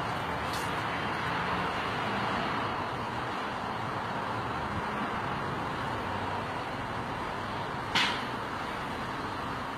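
Steady hiss of road traffic, with a single sharp click about eight seconds in.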